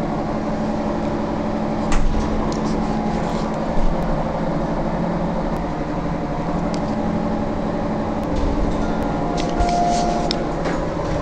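Passenger elevator car travelling between floors: a steady mechanical hum, with a few light clicks and knocks.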